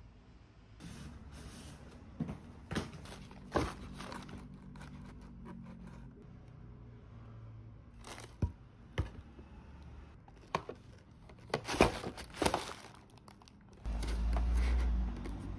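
Cardboard box and boxed cosmetics being handled while unpacking: packaging crinkling and rustling, with scattered sharp taps and clicks, and a dull low rumble for about a second near the end as a cardboard flap is pushed.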